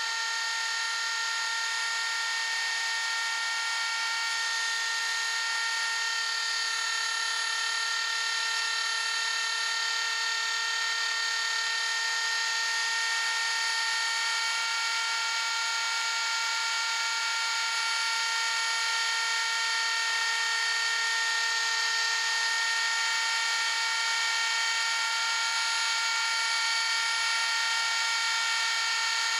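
Table-mounted router running at full speed with a steady high whine, its bearing-guided flush-trim bit trimming the wooden gussets of an aircraft wing rib flush.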